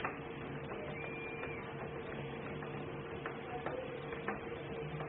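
A few light clicks from a screwdriver driving the last screws into the door lock's housing, over a steady mechanical hum.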